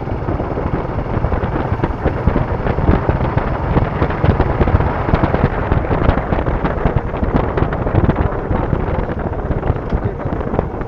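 Suzuki Gixxer SF's single-cylinder engine running at low town speed, with wind buffeting and crackling on the bike-mounted microphone; it gets louder in the middle as the bike speeds up a little.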